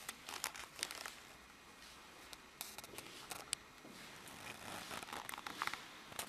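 Faint, irregular clicks and rustles of someone walking on a concrete floor while handling a camera.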